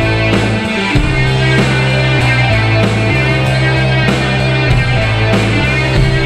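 Rock music with a steady beat and held bass notes.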